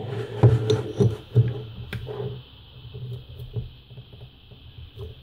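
Screwdriver working a screw in the metal end plate of an electric hydraulic power steering pump: irregular small metallic clicks and scrapes with handling knocks, busiest in the first two seconds and sparser after.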